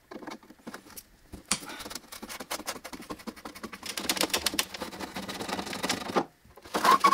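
Screwdriver turning screws in a steel car-door inner panel: a run of quick clicks and scrapes of the tip in the screw heads and the screws in the metal, denser from about four seconds in, with a short pause near the end.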